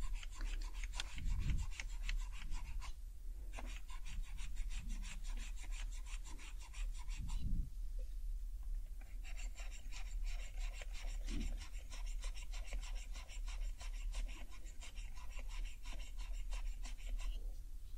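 Alcohol pad scrubbing across the keycaps of an HHKB Professional keyboard in quick back-and-forth strokes, a fast scratchy rubbing. It comes in three stretches, broken by short pauses about three seconds and about eight seconds in, and stops shortly before the end.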